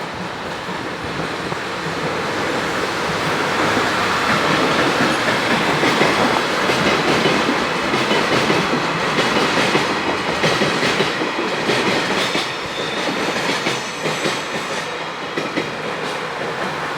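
A freight train hauled by an electric locomotive passing close by. It grows louder over the first few seconds, and the wheels clatter over the rail joints.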